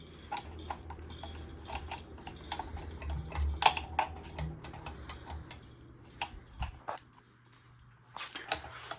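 Hampton Bay Cameron ceiling fan running with a low hum and a stream of irregular ticks and clicks. The hum stops about seven seconds in, and a few more clicks follow.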